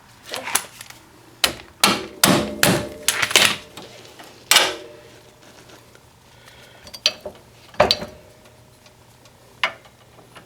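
A run of sharp metal clanks and knocks with brief ringing: a loose steel bolt being rocked in the wallered-out mounting holes of a UTV's rear A-arm and upper control arm, the slop worn in after the factory bolts were left loose. The knocks come thick for the first few seconds, then a few single ones later.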